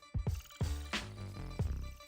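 Background music with a steady electronic beat: kick drum, hi-hats and bass.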